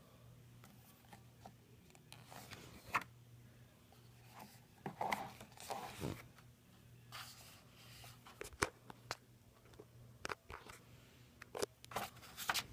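Pages of a printed photo book being turned and handled: scattered soft paper rustles and rubs, with a sharp tap or two, over a faint steady low hum.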